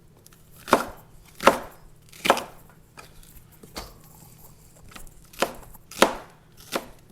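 Kitchen knife chopping onions on a cutting board: about seven separate strokes in two runs, with a pause of about a second and a half in the middle.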